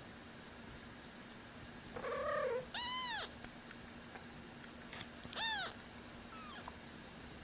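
Twelve-day-old kittens mewing: a short cry about two seconds in, then a high mew that rises and falls, another near the middle, and a fainter one after it.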